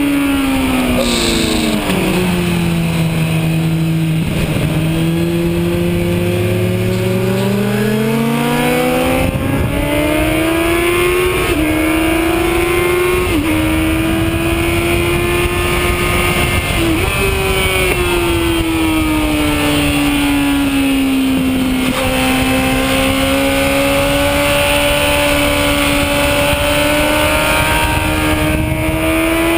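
Kawasaki Z1000's inline-four engine heard from the rider's seat at track speed, its pitch dropping as the bike slows for a corner early on, then climbing hard under acceleration from about nine seconds in with short dips at upshifts, easing again and rising once more near the end. Heavy wind rush runs under it.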